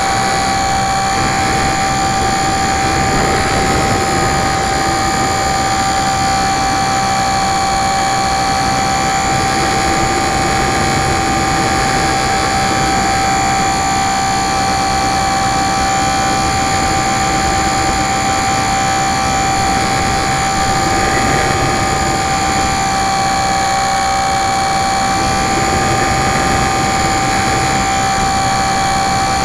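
Electric motor and propeller of a Super Cub LP radio-controlled model plane in flight, heard from a camera on board: a steady high whine over rushing air, its pitch wavering slightly.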